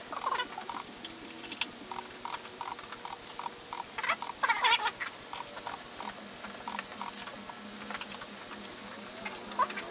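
Light clicks and taps of a plastic rear spoiler being handled and set against a car's trunk lid, with a brief squeak about four seconds in.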